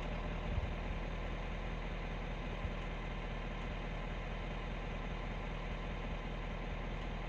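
Vehicle engine idling steadily.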